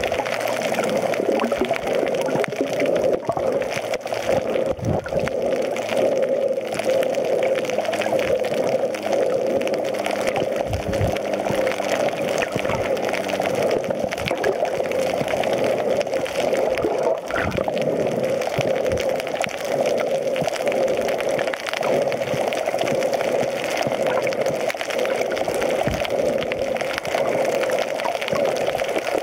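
Steady muffled rush of water heard underwater, picked up through a camera's waterproof housing.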